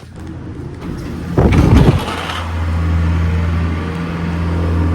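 Car engine starting, with a short loud surge, then settling into a steady idle.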